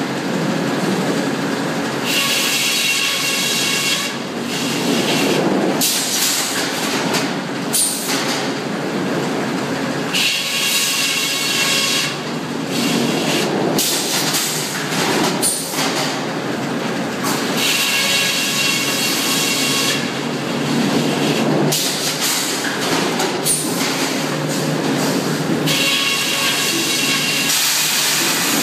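Sawmill circle headsaw, fed by a shotgun-feed carriage, making repeated cuts through a log: a high whine rises during each cut, four times about eight seconds apart, over the steady running of the mill machinery between cuts.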